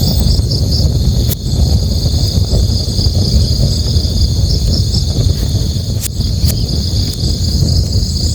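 Crickets chirring steadily in a high pulsing trill over the low rush of a river, with a campfire giving a few sharp crackling pops: one a little over a second in, then two close together near the end.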